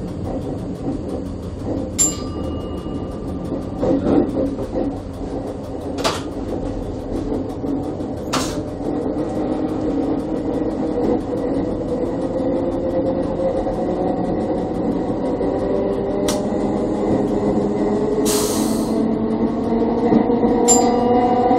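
Electric railcar ABe 4/4 641 running on the track, heard from its driving cab: a steady rumble of wheels on rail with sharp clicks every few seconds and a short hiss near the end. From about halfway a whine rises slowly in pitch and grows louder as the train picks up speed.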